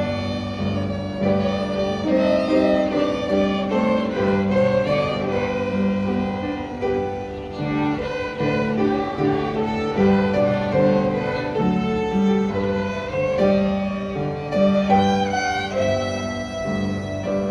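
Student violin ensemble playing a melody, with held low accompaniment notes underneath.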